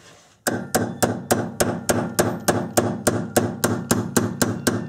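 Small hammer tapping a pin punch in quick, even metal-on-metal strikes, about three and a half a second, starting about half a second in, each with a slight ring: driving the forward assist roll pin into an AR-15 upper receiver.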